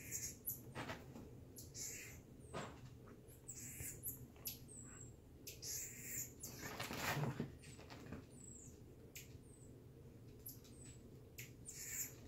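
Common marmoset giving short, high-pitched chirps every second or so while it plays with a small dog, mixed with scuffling and rustling, the loudest burst about seven seconds in.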